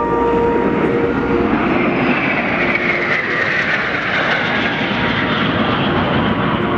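Jet aircraft engine roar passing by, its pitch sliding down from about two seconds in as it goes past.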